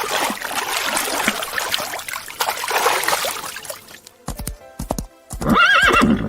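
Horse whinnying near the end, one short wavering high call, after a few seconds of noisy rustling and a run of hoof knocks. Background music plays under it.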